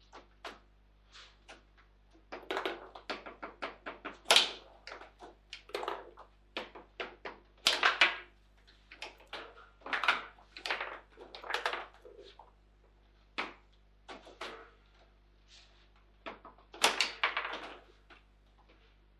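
Foosball in fast play: the ball is struck by the plastic players and cracks against the table walls in quick, irregular clusters of sharp knocks and clicks. The loudest cracks come about four and eight seconds in and again near seventeen seconds, with a sparser stretch of lighter taps between.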